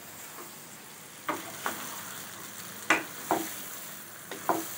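Wooden spatula stirring and scraping boiled chana dal and bottle gourd through the sizzling masala in a nonstick wok, mixing the dal into the tadka. A steady frying hiss runs under about six sharp scrapes and knocks of the spatula on the pan, the loudest about three seconds in.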